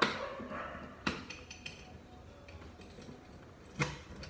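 Three sharp clicks and knocks from a motorcycle top case being fitted and latched onto its rack mounting plate: one at the start, one about a second in and one near the end.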